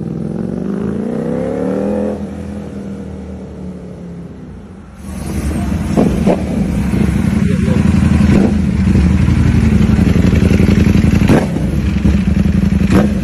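Ducati Panigale V4 superbike pulling away, its V4 engine note rising for a couple of seconds and then fading into the distance. About five seconds in it is suddenly loud and close, the engine running at low revs with a few short, sharp throttle blips.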